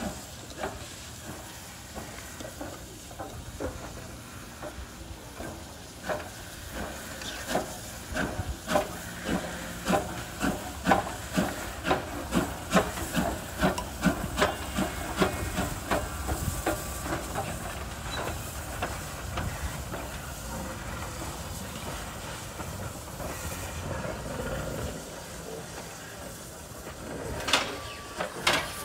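USATC S160 2-8-0 steam locomotive No. 6046 pulling away slowly. Its exhaust beats at about two a second from about six seconds in, giving way to a steady hiss of steam, with a few sharp knocks near the end.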